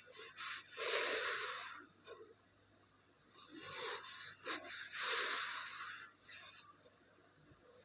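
Kinetic sand being cut and scraped with a tool, giving three crunchy, hissing scrapes, the first about a second in, with small clicks between them.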